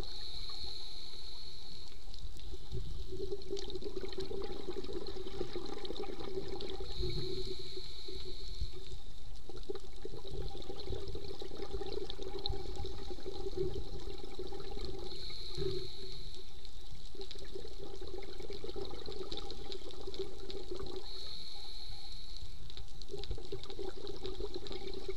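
Scuba diver breathing through a regulator, heard underwater. A hissing inhale comes about every seven seconds, four times in all, each followed by a long bubbling exhale.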